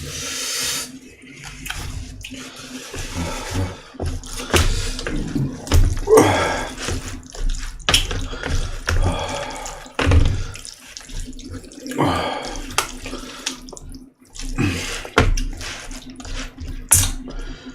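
Close-miked mouth sounds of someone eating: wet chewing and smacking with irregular short clicks, over a faint steady hum.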